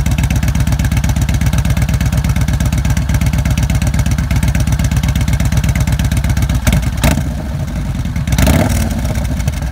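Yamaha Bolt's 942 cc air-cooled V-twin idling loudly through a homemade slip-on exhaust, in a steady run of exhaust pulses. It is revved briefly twice in the last few seconds.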